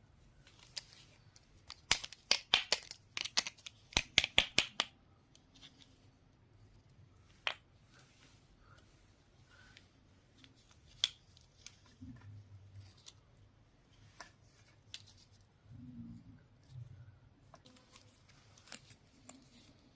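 Unboxing a toy mini kitchen set: a quick run of about a dozen sharp clicks or snips about two seconds in, then scattered single clicks and light handling rustles of packaging and small toy pieces.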